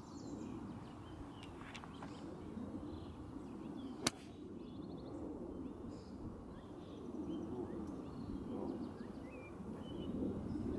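Outdoor ambience: small birds chirping and trilling over a steady low background rumble, with one sharp click about four seconds in.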